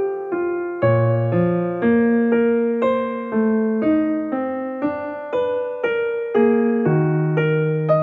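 Background piano music: a gentle, steady melody over chords, notes struck about twice a second.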